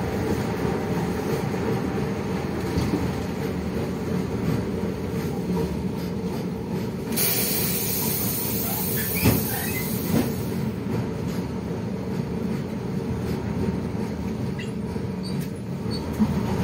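A 1990 LiAZ-677M city bus on the move, heard from inside at the front of the cabin: the steady drone of its V8 engine and running gear. About seven seconds in, a high hiss lasts about three seconds, with a couple of faint knocks.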